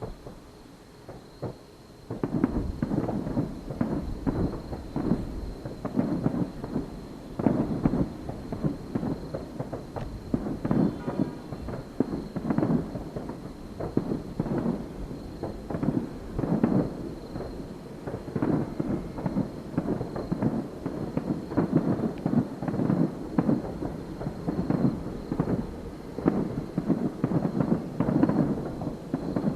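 Aerial fireworks bursting in a rapid, unbroken barrage of booms and crackles, starting about two seconds in.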